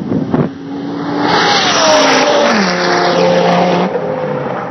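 A race vehicle flies past at about 183 mph. Its engine swells to a peak about two seconds in, the pitch drops sharply as it goes by, and then it fades away.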